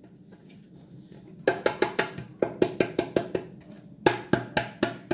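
A quick run of light, hollow percussive knocks, about five a second, in two bursts with a short break between them.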